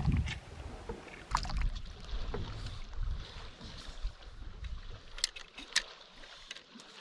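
Canoe sounds on the water: light knocks and clicks against the hull and gear over a low rumble of water and wind, while a hooked pike is brought in.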